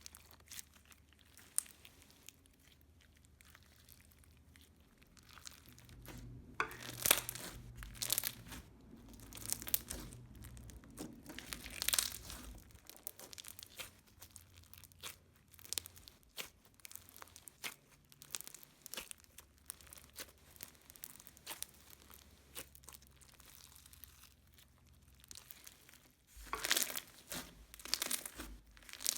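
Slime being stretched, squeezed and poked by hand, giving crackling bubble pops and crunches in uneven clusters, with the busiest stretches about a quarter of the way in and again near the end.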